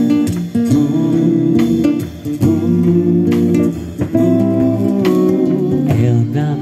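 Instrumental break of a song: guitar playing chords, with a bass guitar underneath.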